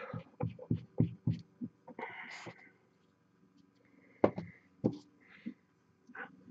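Close-miked breath and mouth sounds: a run of short clicks in the first second and a half, a breathy hiss about two seconds in, then two sharper clicks a little past four seconds.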